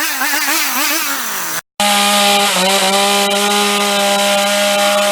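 Hitachi gas chainsaw engine running: its pitch wobbles and sags for the first second and a half. After a brief cut it runs steadily at high revs, dipping for a moment about halfway through.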